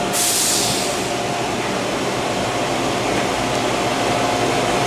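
Spinning amusement ride running: a steady rushing rumble with a constant high hum, and a brief hiss right at the start.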